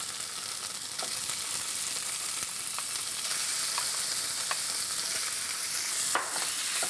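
Ground beef frying with onion and garlic in oil in a skillet, sizzling steadily, with a few light clicks.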